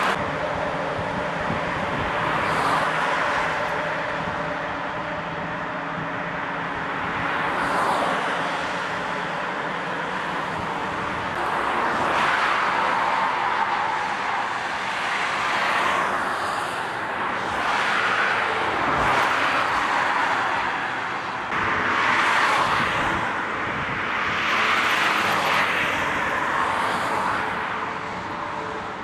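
Highway traffic going by: engine and tyre noise swelling and fading as one vehicle after another passes, every few seconds.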